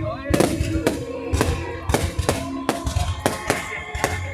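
Fireworks going off in quick, irregular bangs, several a second, over music playing.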